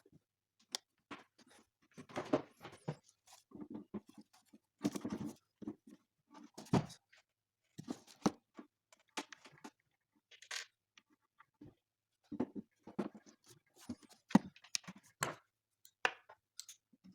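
Irregular clicks, knocks and scrapes of hands handling and reassembling a bread maker's plastic housing and parts, with short gaps between them.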